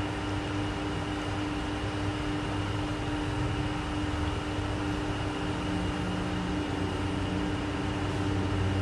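Steady motor hum with a constant low tone over an even rushing noise. A second, lower tone comes in a little past halfway.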